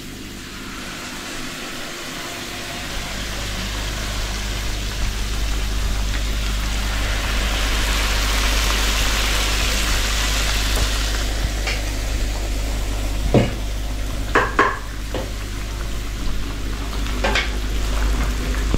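Batter fritters sizzling in hot oil in a frying pan, the sizzle building and holding steady. A few light knocks come in the second half.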